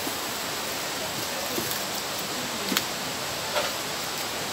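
Steady rush of running water, with a couple of light knocks about midway.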